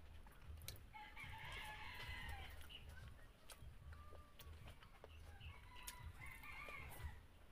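Faint rooster crowing: one long crow about a second in, then shorter calls later, over scattered faint clicks from eating by hand.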